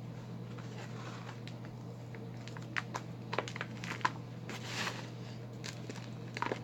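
Hard balls of Ajax and Foca cleaning powder being crushed, giving scattered sharp crunches and cracks that come more often in the second half. A steady low hum runs underneath.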